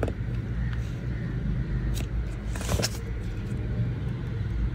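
Steady low background rumble, with brief paper rustles about two seconds in and again just before three seconds as a textbook page is turned.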